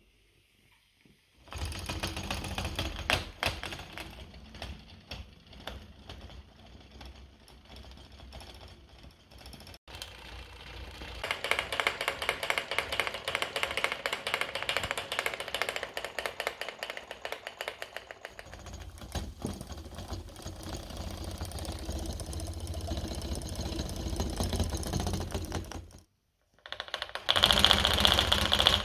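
Homemade tin-can free-piston Stirling engine running, its piston rattling in a fast, even clatter. The strength shifts several times, with a brief break about 26 seconds in, and it is loudest near the end.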